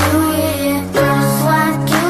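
Background pop music: a sung melody over sustained chords that change about once a second.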